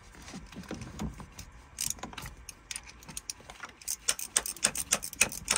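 A 1/2-inch wrench working the mounting bolt of a PCM marine engine's knock sensor: a run of short metal clicks, coming faster in the second half.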